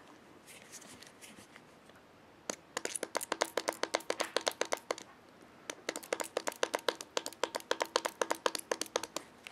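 Spray bottle of gun cleaner pumped rapidly, soaking a cleaning patch: two long runs of quick, evenly spaced spray strokes, with a short break between them.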